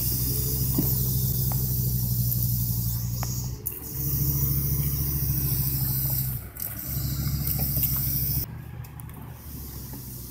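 Heavy truck's diesel engine running steadily under load, with a hiss of noise above it. It is interrupted briefly twice and drops away about 8.5 seconds in.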